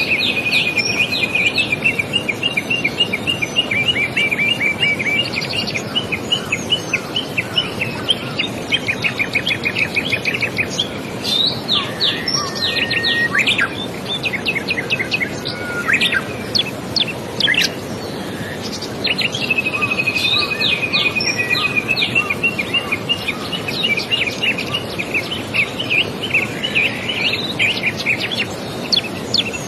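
Songbirds singing: fast, even trills of high chirps and sharp downward-sweeping whistled notes, coming in bouts. A steady rushing background noise runs underneath.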